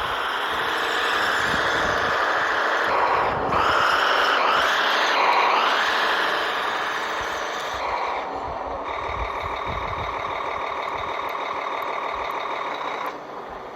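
Electric motor and track drive of a Kyosho Blizzard 2.0 RC tracked snow vehicle whining as it runs, the pitch rising and falling a few times in the middle as the throttle changes, then holding steady before dropping away near the end.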